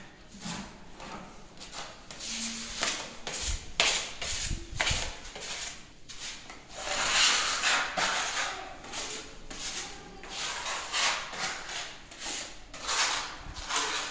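A wall being sanded by hand with a sanding pad, in repeated uneven strokes of rasping hiss.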